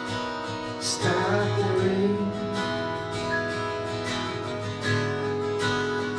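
Live acoustic band music: an acoustic guitar strummed in steady chords over held keyboard notes, an instrumental stretch with no singing.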